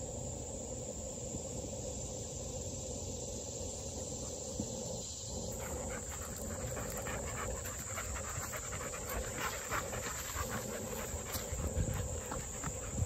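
Two mixed-breed dogs panting quickly as they walk, starting about five and a half seconds in; before that only a steady outdoor background.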